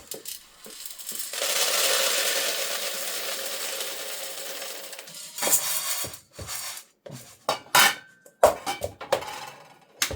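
Kitchenware being handled while popcorn is prepared: a steady rushing hiss for about four seconds, then a series of separate clinks and knocks of pots and utensils.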